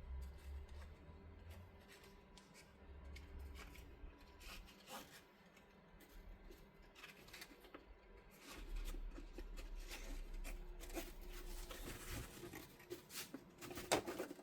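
Handwork on stiff X-Pac laminated bag fabric: crinkling, rubbing and small clicks and snips as the material is handled. The sounds come and go, grow busier in the second half and are loudest near the end.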